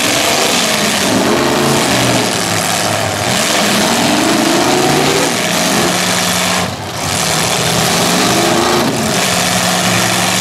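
Several demolition derby car engines running and revving at once through open, hood-mounted exhausts, the revs rising and falling over and over as the cars push against each other; loud throughout, with a brief dip about seven seconds in.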